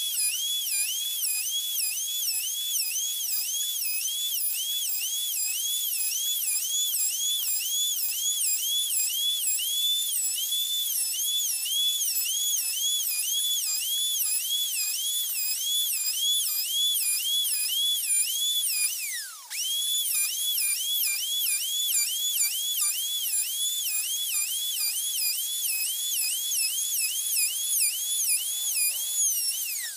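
Handheld electric plunge router running at high speed, a high whine that dips and recovers in pitch about twice a second as the bit cuts into the wood. Just past halfway the motor bogs down sharply and picks up again, and at the very end it winds down.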